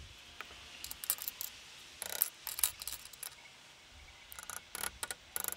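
Steel tongs clinking against small blued steel wrench parts and a glass dish as the parts are lifted out and set down. The clinks are light and sharp, coming in several short clusters.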